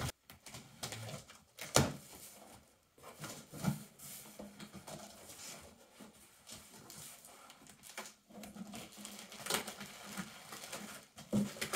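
Cardboard shipping box being opened by hand, its flaps folded back and the plastic-wrapped packing inside handled: scattered short knocks and rustles of cardboard and plastic with quiet gaps between them.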